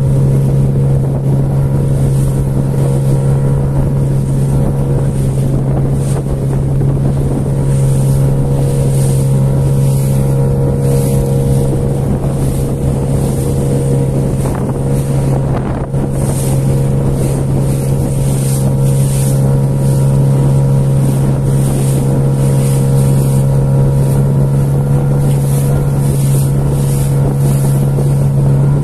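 Outboard motor of an inflatable boat running steadily under way, a constant low drone that holds one pitch throughout, with wind buffeting the microphone.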